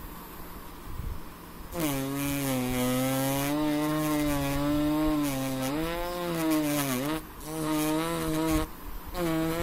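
Engrave-It engraver pen buzzing as its tip scratches letters into black paper, starting about two seconds in. The buzz wavers slightly in pitch and breaks off briefly twice near the end.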